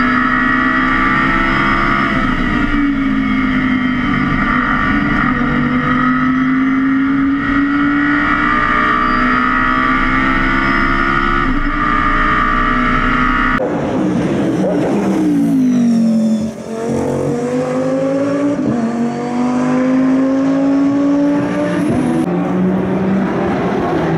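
Audi R8 LMS race car's V10 engine at high revs heard from inside the cockpit, its pitch swelling slowly up and down. About halfway through the sound switches abruptly to the car heard from trackside: the engine note falls steeply as it goes past, then rises again as it accelerates away.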